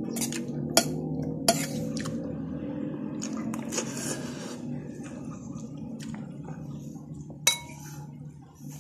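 A metal spoon clinking and scraping against a plate during a meal: three sharp clinks, two in the first second and a half and one near the end, over a steady low hum.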